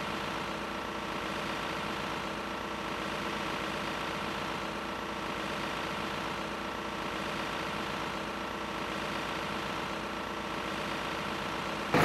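Steady, unchanging motor hum made of many even tones.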